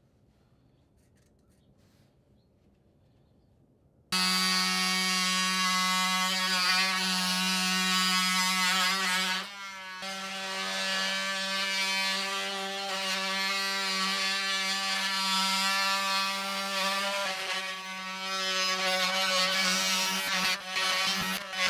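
About four seconds in, a Milwaukee cordless oscillating multi-tool starts with a steady buzz as it cuts into the wooden stem of the boat. It stops for a moment about ten seconds in, then runs on, its buzz wavering and dipping under load near the end.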